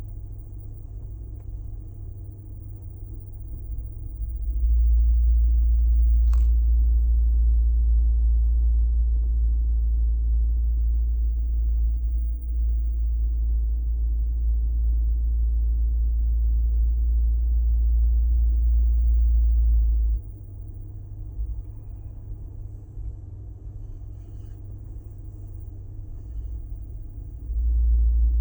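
A deep, loud droning hum that sets in about four seconds in, cuts off abruptly about twenty seconds in and comes back near the end, over a quieter rumble. It is the drone noise being recorded, heard against a vehicle-like rumble.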